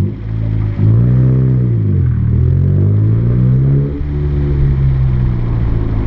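Car engine through an aftermarket HELL exhaust, driving under load. Its pitch rises and falls once, then climbs steadily until a sudden drop about four seconds in, like a gear change, after which it runs steadily.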